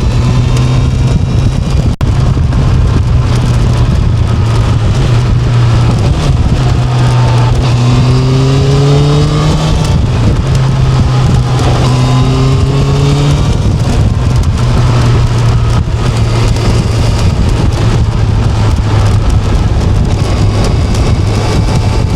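Motorcycle engine running under way, with a steady low drone and wind noise. Its pitch rises twice, with a short break about ten seconds in like a gear change.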